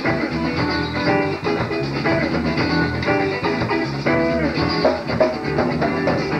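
Southern rock band playing an instrumental passage: a lead guitar line of changing and bent notes over bass guitar and a drum kit.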